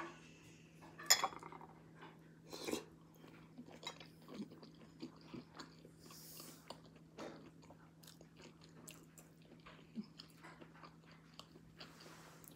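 Close-up chewing and wet mouth sounds of someone eating crab and shrimp dipped in sauce, with many small smacks and clicks. A few louder clicks come in the first three seconds.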